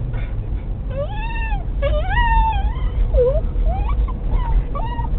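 Excited basenji whining and crying in a run of pitched calls that rise and fall, about half a dozen in a row, over the low rumble of the moving car.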